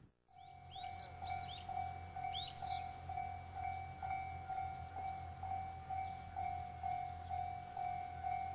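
Railway level-crossing alarm ringing, a steady electronic bell tone repeating about twice a second. Birds chirp a few times in the first few seconds.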